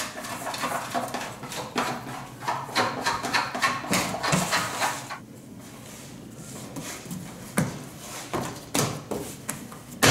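Sticky bread dough being scraped and pulled off a metal mixer paddle and bowl by hand, then the large dough mass handled on a steel worktable, with a few dull thumps near the end as it is pressed and dropped.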